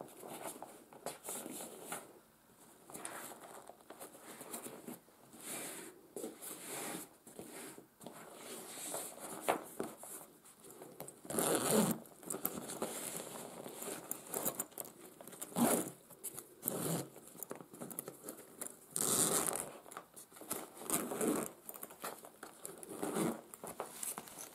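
The zipper of a padded nylon carrying case is pulled open in several long rasping strokes, with fabric rubbing and scraping as hands handle the case.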